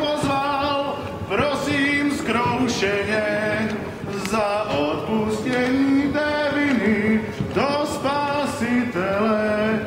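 A man singing a Moravian folk song, in long held phrases with a wavering pitch broken by short breaths.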